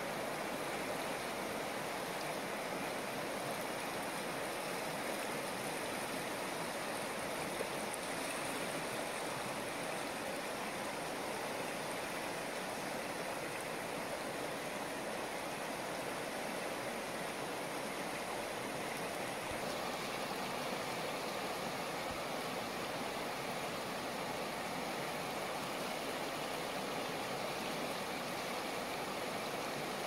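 River water flowing fast over rocks and small rapids, a steady, unbroken sound of running water.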